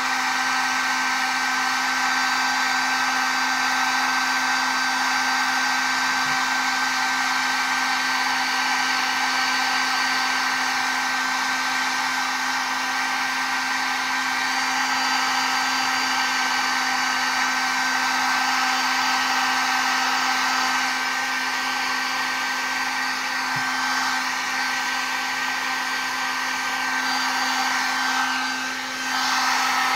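Cheap Harbor Freight heat gun running steadily, its fan blowing a constant rush of air with a faint steady whine in it. The sound dips briefly near the end.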